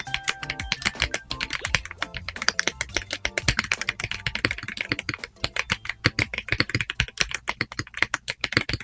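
Fast typing on a Feker K75 mechanical keyboard: a dense run of key clacks, many a second, with background music underneath that is clearest in the first second.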